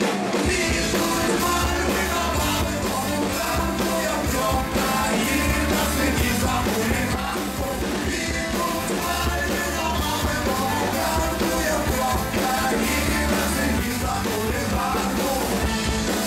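Live ska-punk band playing loudly: a man singing the lead vocal over electric guitar, trumpet and trombone, with a driving beat.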